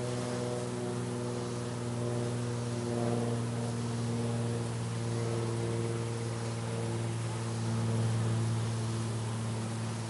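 Honey bees humming at the hive entrance: a steady, low drone of many wingbeats, with fainter higher tones that come and go from bees close by.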